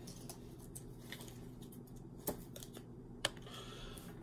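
Soft handling noise with a few faint, light clicks, about one a second: a shirt being tugged and felt at, to find a scratchy tag.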